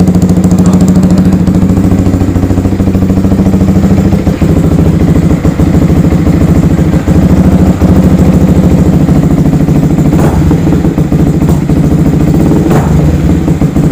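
Yamaha R15's single-cylinder engine idling loudly through an aftermarket Akrapovic-style exhaust, a steady low exhaust note that shifts slightly a few times, with a couple of sharp clicks near the end.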